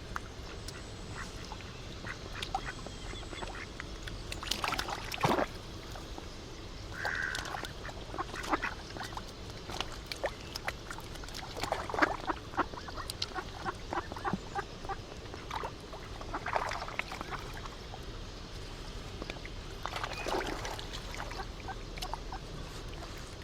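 Ducks quacking: a handful of short bursts of calls spread through, with scattered small clicks over a steady background hiss.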